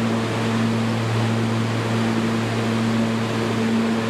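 Steady subway station noise: a low, even hum under a rushing sound as an R46 subway train approaches through the tunnel toward the platform.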